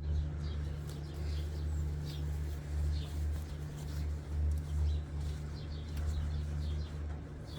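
Outdoor ambience: a low rumble that swells and fades, with small birds chirping faintly here and there.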